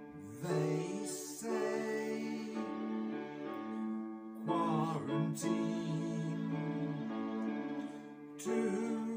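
A song: a voice singing short phrases over steady chordal backing, with new phrases coming in about half a second in, around the middle and near the end.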